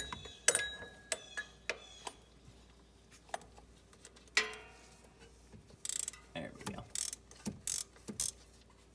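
Ratchet with an oil filter socket clicking in short, irregular runs as it works a stuck oil filter loose, with metal knocks of the tool against the frame. The clicks are sparse at first and come in denser bursts in the second half.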